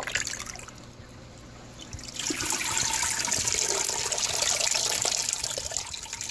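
Water pouring and trickling out of a SunSun canister filter's media tray as it is lifted out of the canister, running back down into the housing. It starts about two seconds in and keeps running steadily.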